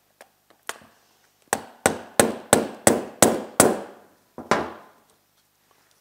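Ball-peen hammer striking the steel tab on a snowmobile bogie wheel arm, bending it over to hold the suspension spring down. Two light taps, then a run of seven sharp metal blows about three a second, and one last blow about a second later.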